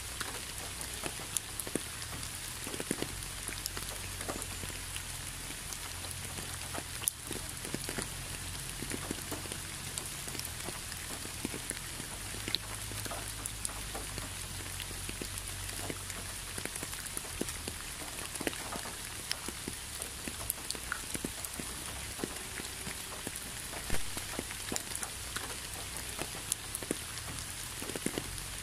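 Steady rain falling, with many separate drops striking close by as sharp ticks over an even hiss.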